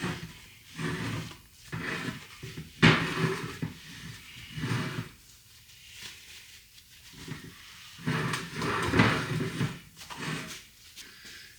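Irregular scraping and wiping as old grease is cleaned out of a 1987 Toyota 4Runner front hub cavity, with a sharp knock about three seconds in.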